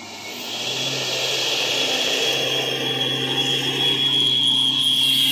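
Turbocharged 4x4 engine revving hard under load, with a steady high turbo whistle, as its wheels spin through bog mud. The sound builds over the first second and then holds.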